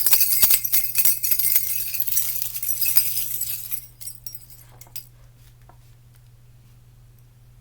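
Jingle bells shaken in a dense, continuous jingle that stops a little under four seconds in, followed by a few faint clinks.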